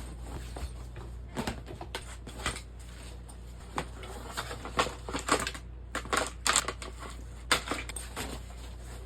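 Irregular clicks, taps and rustles of packaging and gear being handled, over a steady low hum; the clicks come thicker and louder in the second half.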